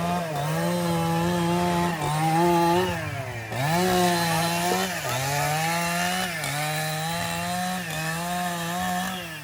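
A small engine running at high speed, its pitch holding steady and dipping briefly every second or two.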